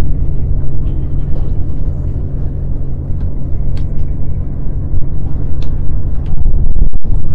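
Wind buffeting the microphone: a loud, fluctuating low rumble, with a few faint ticks above it and a brief dropout about seven seconds in.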